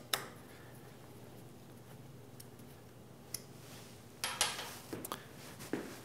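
Small metal clicks and a short clatter about four seconds in, from a hex driver and small screws being handled while a bracket is screwed onto a stepper motor, over quiet workshop room tone.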